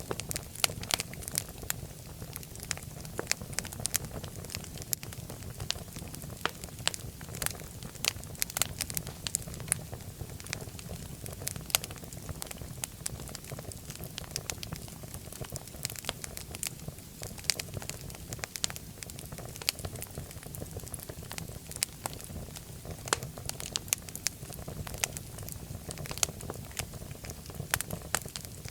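Wood fire in a fireplace crackling: frequent sharp irregular pops and snaps over a steady low rumble of burning.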